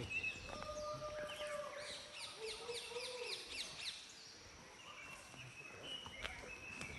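Forest birds calling: a rapid series of short, high, descending notes from about two seconds in, with other scattered calls and a held whistle-like tone before it.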